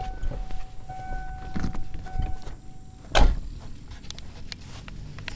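1988 Ford Ranger's warning beeper sounding a steady single tone in stretches with short breaks for about three seconds, then a loud knock a little after three seconds, with a few light clicks around it.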